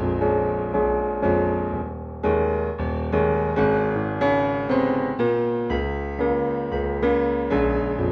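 Background keyboard music in a piano tone: chords struck about every half second, each fading before the next.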